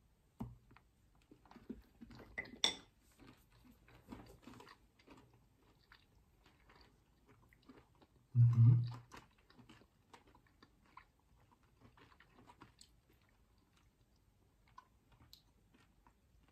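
Quiet chewing and crunching of Lindt HELLO vegan chocolate with crunchy popcorn pieces in it, in small scattered crackles. A short low hum of voice about halfway through is the loudest sound.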